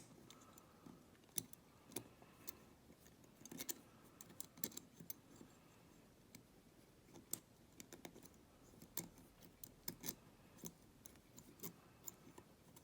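Faint, irregular metallic clicks and ticks of homemade wire picks working the levers inside a three-lever Evers lever padlock.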